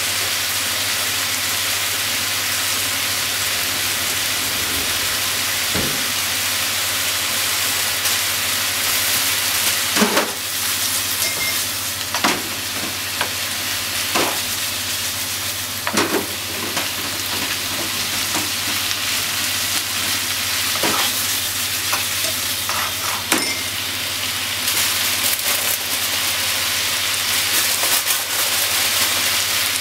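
Pork, carrot, green pepper and onion sizzling in oil in a frying pan, a steady hiss. From about ten seconds in, a spatula knocks and scrapes against the pan every two seconds or so as the stir-fry is tossed.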